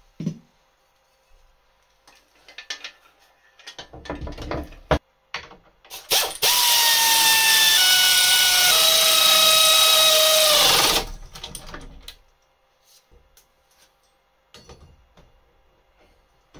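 Pneumatic air ratchet running for about five seconds, its whine falling in steps as it slows while tightening the mower blade's retaining bolt. Before it come scattered clicks and clinks of the tool and socket being fitted to the bolt.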